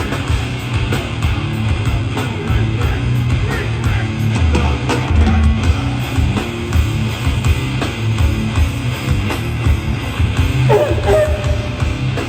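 Loud live hardcore band playing: distorted electric guitars, bass and a fast drum kit, heard through a crowd recording.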